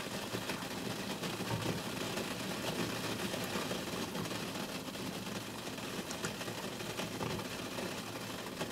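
Steady rushing hiss from a stainless steel steamer pot heating water on the stove, with a few faint light taps as silicone cupcake cups are set onto the perforated steamer tray.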